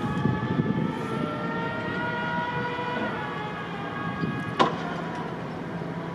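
Tug's diesel engine running, with a whine that rises slowly in pitch over the first three seconds. A single sharp knock about four and a half seconds in.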